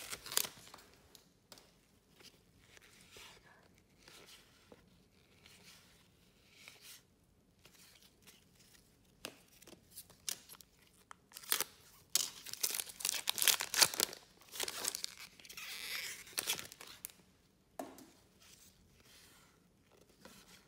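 Trading-card pack wrappers being torn open and crinkled by hand, with cards rustling as they are handled. The sound comes in irregular rustles, busiest and loudest about twelve to fourteen seconds in.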